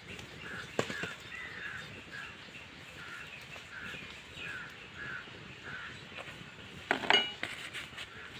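Birds calling, a short note repeated two or three times a second. There is a sharp click about a second in and a brief clatter of knocks near the end.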